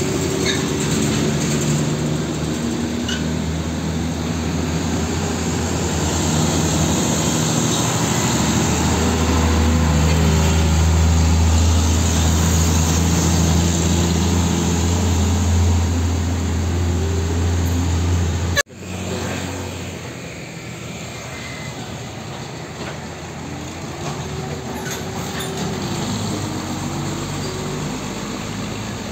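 Diesel trucks passing close on a road: a heavy engine's low running note grows loudest as a tanker truck towing a tanker trailer goes by, over steady tyre and traffic noise. About two-thirds through the sound breaks off for an instant, then another truck's engine carries on, quieter.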